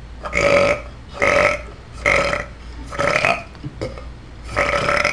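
A person burping five times in a row, loud belches each about half a second long.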